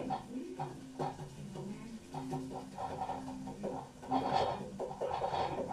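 Wooden spoon stirring and scraping round a steel cooking pot, a run of uneven scrapes with a louder stretch about four seconds in.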